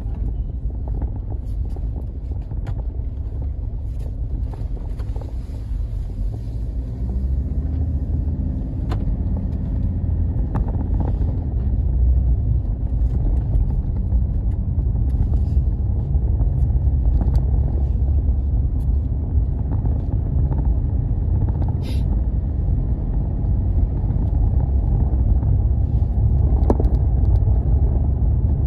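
Car's engine and tyres rumbling steadily as heard from inside the cabin while driving on a dirt road, getting louder about a third of the way in, with a few light clicks.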